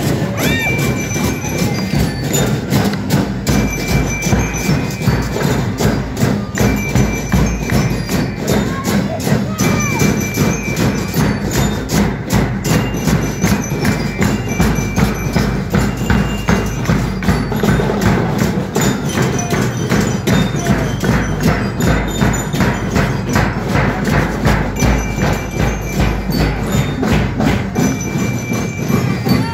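School marching band playing a march: bass drums beating a steady rhythm, with a high, bell-like melody over it.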